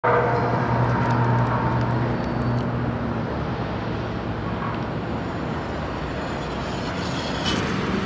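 Road traffic: a passing vehicle's engine hum fades out over the first three seconds, leaving a steady traffic rumble.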